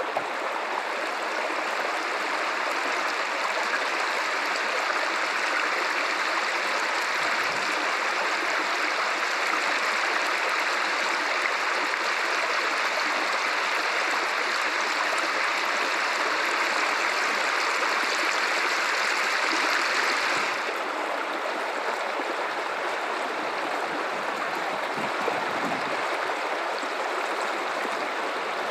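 River water running over rocks: a steady rushing and gurgling of the Guadalupe River. About twenty seconds in it turns slightly quieter and duller.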